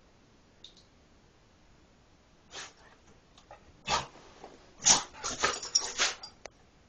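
Dog sneezing: single sharp sneezes about two and a half and four seconds in, then a quick run of louder sneezes and snorts about five to six seconds in.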